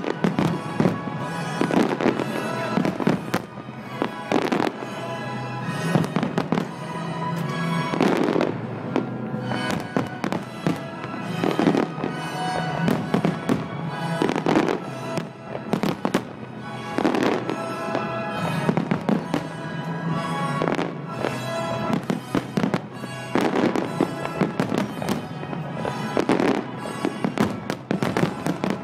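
Aerial fireworks shells bursting in a rapid string of sharp bangs and crackles, several a second, over music played along with the display.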